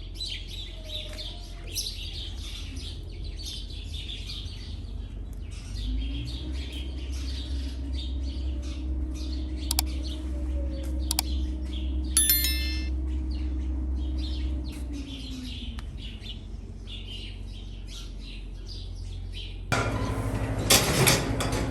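Small birds chirping busily over a steady low machine hum. A motor spins up about six seconds in, runs steadily, and winds down about ten seconds later; a louder rumbling noise starts near the end.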